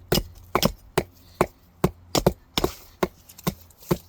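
Two axes chopping into logs, a dozen or so sharp wood-splitting strikes at an uneven pace of about three a second as two people chop side by side in a race.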